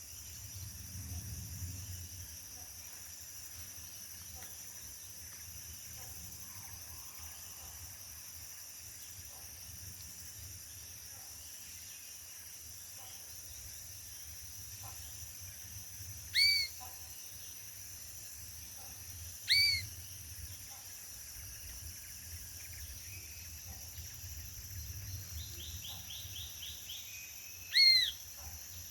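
Tropical forest ambience: a steady high insect drone, with three loud, short, arched bird whistles, one about halfway through, one three seconds later, and one near the end, and a quick rattling run of notes just before the last.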